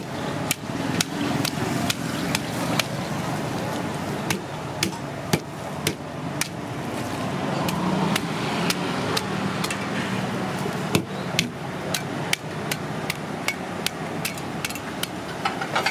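Long knife scaling a giant grouper: uneven sharp clicks and scrapes, about two a second, as the blade strikes and rakes the thick scales off the fish.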